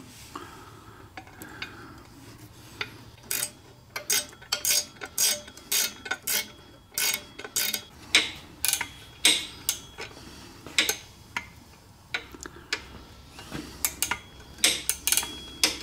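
Sharp metal clicks and clinks from hand tools working the bolts on a motorcycle exhaust header bracket, irregular and about two or three a second, beginning about three seconds in with a short pause near the end.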